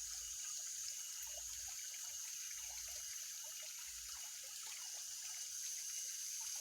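Water trickling steadily, with small scattered drips, over a constant high-pitched hiss.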